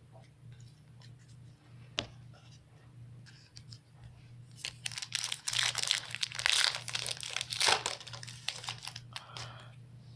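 Foil trading-card pack wrapper being torn open and crinkled, loudest from about four to eight seconds in, with a single sharp click about two seconds in.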